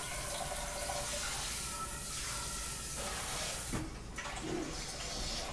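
Steady hissing background noise with faint, thin tones underneath, and no speech.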